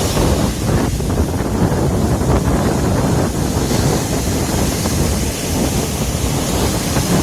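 Wind buffeting the microphone with a steady low rumble, over the wash of sea surf breaking on the shore.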